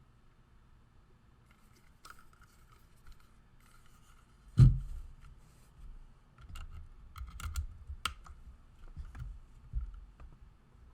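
Ducky Mini Mecha 2 mechanical keyboard with Cherry MX Red switches: one heavy thump about four and a half seconds in, then scattered, irregular key clicks and taps.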